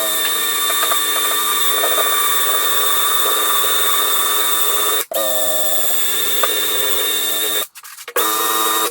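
Drill spinning a decal eraser wheel against the painted door, rubbing off old decal glue: a steady whine that drops out for an instant about five seconds in and stops briefly near the end.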